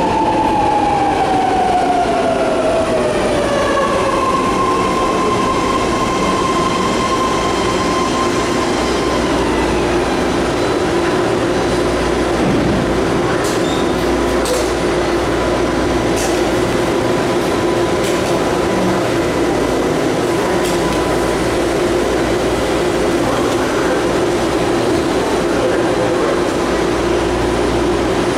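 BART rapid-transit train braking to a stop at the platform, its motor whine falling in pitch over the first few seconds. It then stands with a steady hum, and a few sharp clicks come about halfway through.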